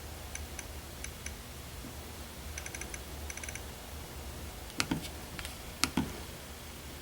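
Nest thermostat's ring being turned to set a temperature, ticking faintly: single ticks at first, then quick runs of ticks. Two louder clicks follow near the end.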